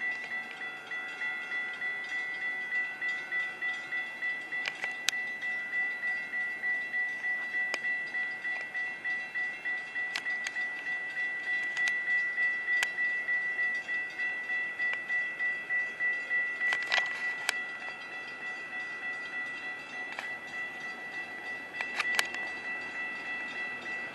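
Railroad grade-crossing warning bell ringing in a steady, even rhythm as a Metra commuter train approaches, with a few sharp metallic clanks.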